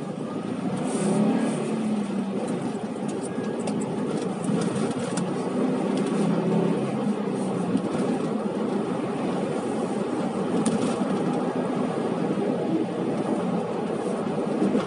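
Car engine running with steady road noise as the car drives, the engine's pitch wavering slightly.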